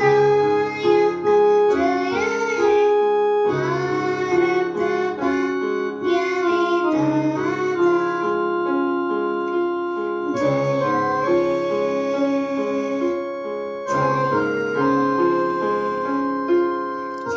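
Electronic keyboard playing a slow melody over held chords.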